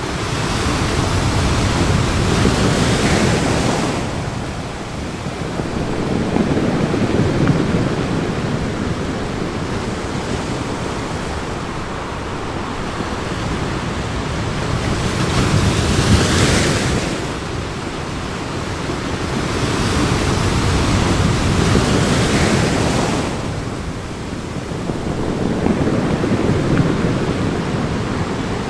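Sea surf surging and breaking over rocks: a continuous rush of water that swells and eases every few seconds. The strongest surge comes about sixteen seconds in.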